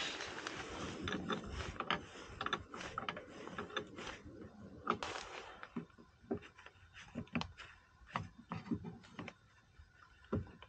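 Socket ratchet wrench clicking as it works a bolt loose, in quick dense strokes at first, then thinning to scattered single clicks after about six seconds.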